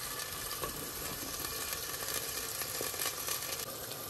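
Minced meat and onions sizzling steadily in a pan, with a couple of faint clicks.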